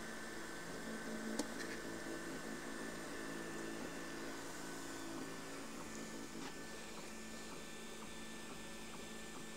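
Anet A8 3D printer running a print: a steady hum from its fans and stepper motors as the printhead moves over the bed, with a faint click about a second and a half in.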